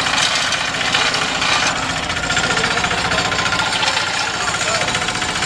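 Loud custom motorcycle engine running steadily with a rapid, even stream of firing pulses, typical of an open or short exhaust.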